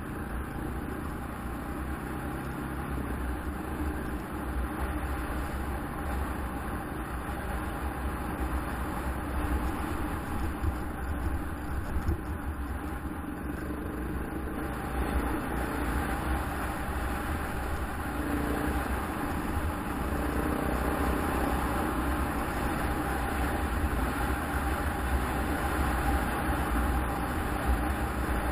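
KTM 690 Enduro's single-cylinder engine running as the motorcycle is ridden along a dirt trail, a steady rumble that grows a little louder over the stretch.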